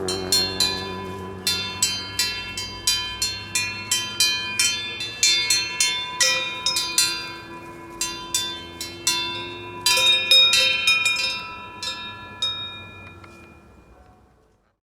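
Music: a run of bell-like struck notes, each ringing on, fading out to silence near the end.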